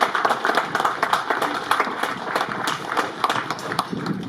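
A crowd applauding, with many hands clapping together.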